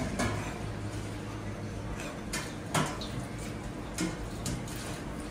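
Meat cleaver knocking on a wooden chopping block as raw beef is cut into pieces: several short, sharp knocks spread irregularly over a steady low hum.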